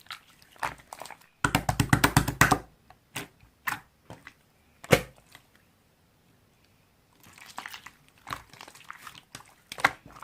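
Slime being squeezed and poked by hand, making sticky clicks and pops: a quick run of them about a second and a half in, a single loud pop near five seconds, a short pause, then softer crackling clicks near the end.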